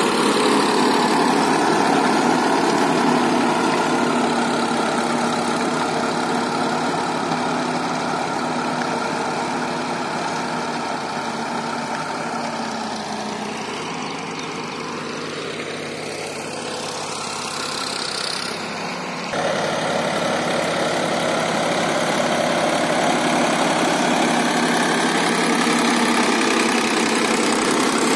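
Sonalika DI 35 tractor's three-cylinder diesel engine running steadily under load while driving a rotavator through the soil. It fades a little in the middle and comes back louder suddenly about two-thirds of the way through.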